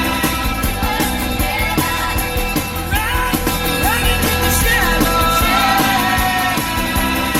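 Background rock music with a sung vocal line over a steady beat.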